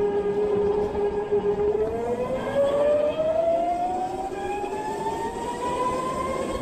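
Electric go-kart motor whining under acceleration. Its pitch holds steady for about two seconds, then rises smoothly as the kart gathers speed, over a hiss of tyre and wind noise.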